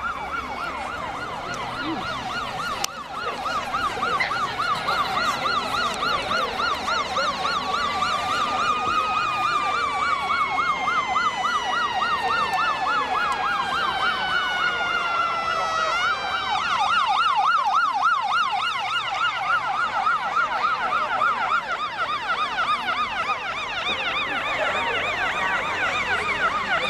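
Electronic emergency-vehicle sirens sounding together: one in a fast warbling yelp, the other in a slow wail that falls over several seconds and jumps back up about sixteen seconds in.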